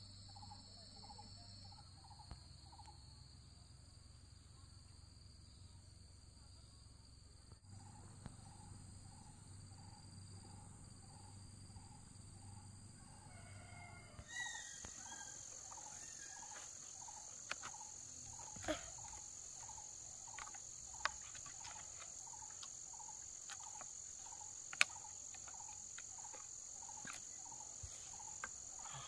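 Steady high-pitched buzzing of insects, with a lower chirp repeating about every three-quarters of a second. About halfway through, the insect tone shifts higher and scattered sharp clicks and snaps of sticks being handled begin, one snap standing out louder late on.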